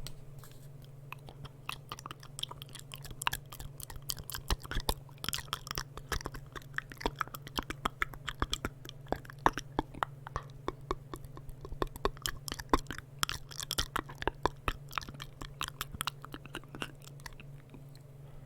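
Close-miked ASMR mouth sounds: rapid, irregular clicks and smacks, densest in the middle and thinning out near the end. A steady low hum runs underneath.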